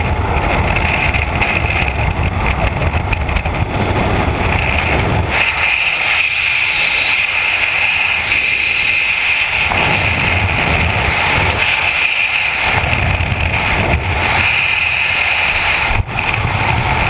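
Freefall wind rushing over a helmet-mounted camera's microphone: a loud, continuous rush whose low rumble swells and eases every few seconds.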